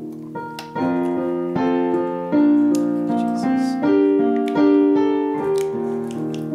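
Slow piano music: held chords struck one after another, each left to ring and fade before the next.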